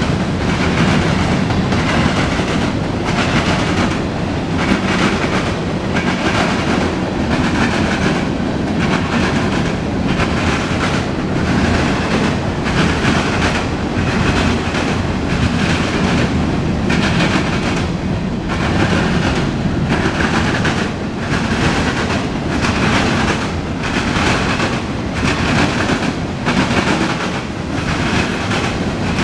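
Freight train cars rolling past: a steady rumble of steel wheels on rail, with an even, repeating clickety-clack about once a second as the wheels pass.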